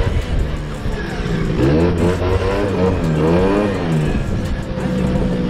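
Suzuki LT80 quad's small two-stroke engine revving up and down a few times, then holding a steadier pitch near the end.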